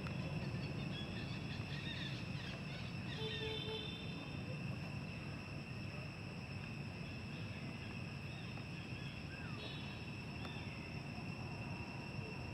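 Steady high-pitched drone of insects in the background, with a few faint short chirps about two to four seconds in and again near ten seconds.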